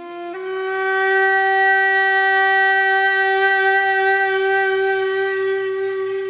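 Shakuhachi bamboo flute holding one long, steady note, swelling up over the first second and fading slightly near the end.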